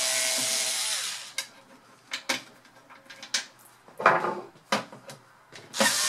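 Small cordless electric screwdriver running as it backs out Torx T10 case screws. It stops about a second in, a few sharp clicks and taps follow, and it starts running again near the end.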